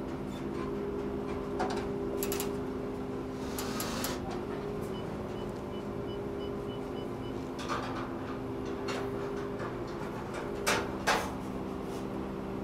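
A vehicle engine idling steadily, with scattered clanks and knocks, two louder ones close together near the end. About halfway through comes a short run of quick, high beeps, about seven of them.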